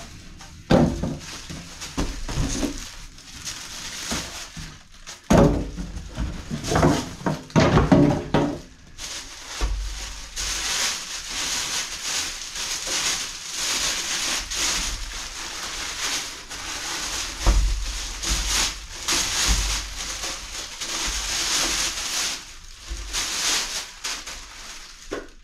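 Polystyrene packing pieces knocking and rubbing as they are lifted off a boxed inverter. Then, about ten seconds in, a long stretch of plastic bag crinkling and rustling as the unit is worked out of its wrapping.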